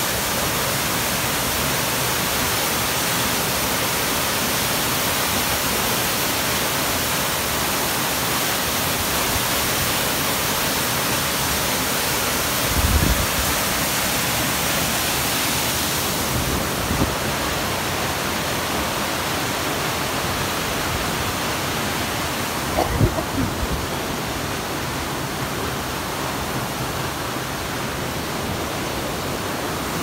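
Dyserth Waterfall, the River Ffyddion falling over a 70-foot ledge: a steady, even rush of falling water. A few brief dull bumps come about 13 seconds in and again about 23 seconds in.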